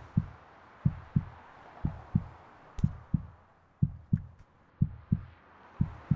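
Slow heartbeat, a pair of low thumps about once a second, over a faint hiss.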